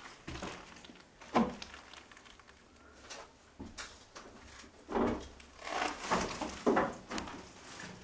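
Irregular footsteps and scuffs on an old wooden floor littered with broken plaster and paper, with a few louder knocks a little past the middle.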